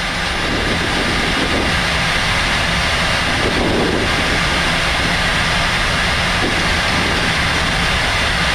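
Steady rushing noise on a Boeing 747-400 flight deck on final approach: airflow over the cockpit with the jet engines running underneath.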